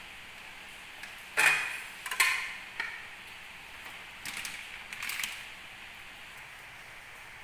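Dishes and plastic kitchenware being handled on a counter: sharp clatters about a second and a half and two seconds in, a lighter knock shortly after, then a run of softer knocks and rustles around four to five seconds in.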